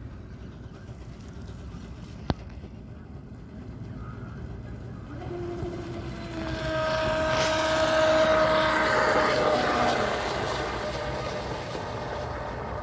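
RC boat passing at speed: its motor whine and the hiss of water build to a peak about eight seconds in, the whine dipping slightly in pitch as it goes by, then fade. A single sharp click comes about two seconds in.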